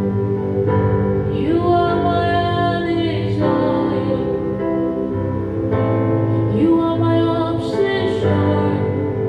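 Slow, sustained devotional instrumental music with long held notes changing chords every second or two, and a wordless female voice gliding over it.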